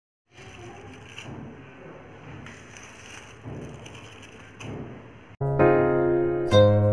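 Faint crackling and rustling of dried rose petals being crumbled and handled. About five seconds in, louder piano music starts.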